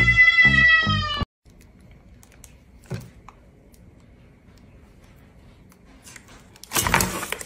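A cat's loud, harsh yowl near the end, after background music with a steady beat cuts off about a second in and a quiet stretch with a single click.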